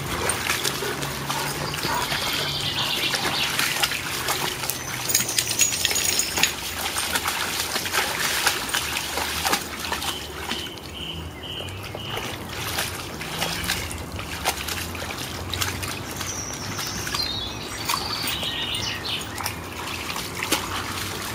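Italian Spinone dogs wading through a shallow stream, their paws splashing in the running water, which trickles throughout. Birds chirp a few times, most clearly near the middle.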